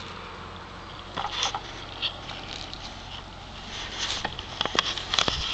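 Bean leaves rustling and brushing against the camera as it is pushed through the plants, in short bursts, with a few sharp clicks near the end.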